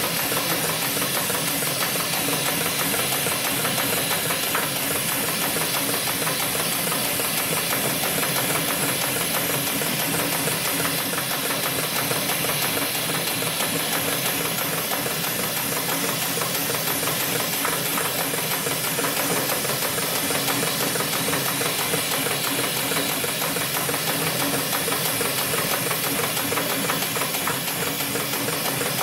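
Hightex 7373BP automatic spiral sewing machine running steadily, its needle stitching a spiral through a thick stack of cloth discs to make a buffing wheel: a fast, even mechanical chatter over a steady hiss.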